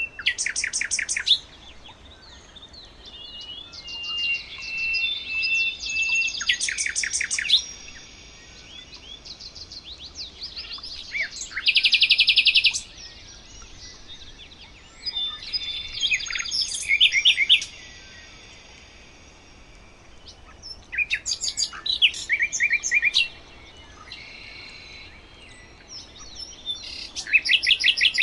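Songbirds singing: bursts of rapid high trilled notes every few seconds, with thin held whistles between the bursts.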